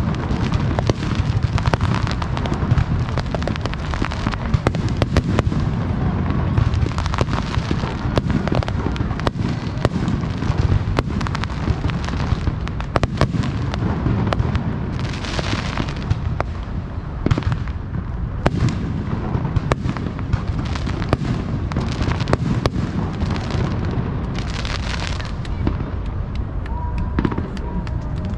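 Aerial fireworks display: a rapid, unbroken string of shell bursts and booms over a continuous low rumble. Twice, about halfway and near the end, a brighter crackling hiss rises for about a second.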